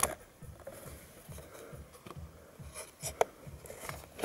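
Quiet handling sounds during work on a steering wheel: soft rubbing with a few small sharp clicks, the sharpest about three seconds in.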